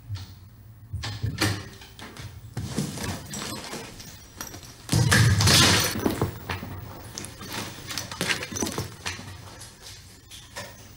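A string of knocks and thuds of a person moving on a wooden floor and bumping against a wall. The loudest comes about five seconds in as a longer, heavier scuffling thud, with lighter knocks before and after.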